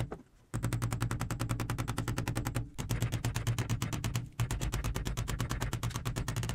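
A hammer rapidly striking the plastic case of a USB AC adapter, about ten sharp blows a second in three runs with brief pauses, to crack open its ultrasonically welded seam.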